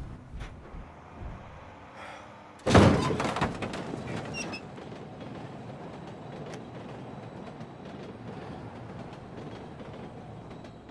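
A van's rear door banging open once, a single heavy metallic thud about three seconds in that dies away over a second, followed by steady quiet street ambience.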